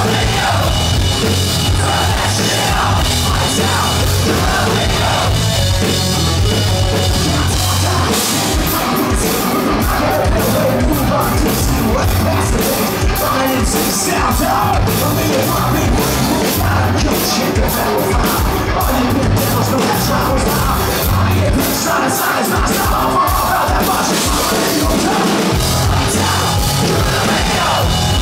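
A live hard rock band playing loud and steady: electric bass, drum kit and amplified instruments, heard from the audience.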